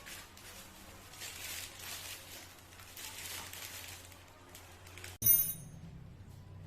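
Handling of a metal disc-brake lock and its keys: faint rustling, then about five seconds in a single sharp metallic clink with a high ringing.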